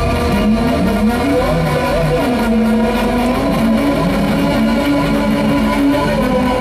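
Live electronic noise music: electric bass and synthesizer played through effects, dense and loud. Droning held tones sit under sliding pitches that rise and fall in the first couple of seconds.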